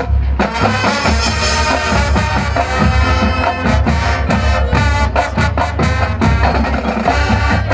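A high school marching band playing loudly together: brass and woodwinds over a drumline and a front ensemble of marimbas and other pit percussion, with a strong low drum pulse.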